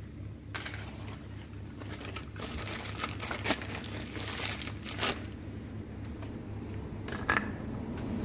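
Crinkling and rustling of something being handled, with a few sharp clicks, over a steady low hum.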